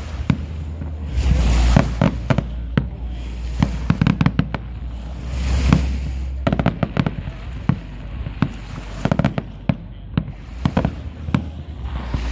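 Aerial fireworks shells bursting in a steady run of sharp bangs and crackles, with heavier booms about a second and a half in and near the middle.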